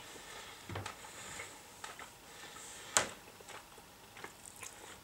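Faint scattered light clicks and taps from a metal fork being handled over a plastic ready-meal tray, with one sharper click about three seconds in.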